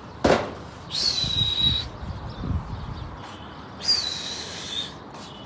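A sharp knock or clap, then two shrill, steady whistles about three seconds apart, each under a second long, from a pigeon keeper whistling to his flying pigeons.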